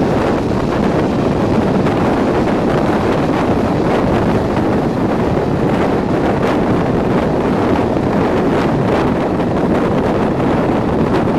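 Wind rushing steadily over a microphone held at an open coach window of a moving train hauled by a Class 37 diesel locomotive, with the train's running noise underneath.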